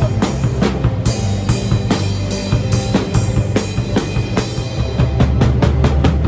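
Acoustic drum kit played live in a steady beat, with bass drum, snare and cymbal hits, over music with sustained low bass notes.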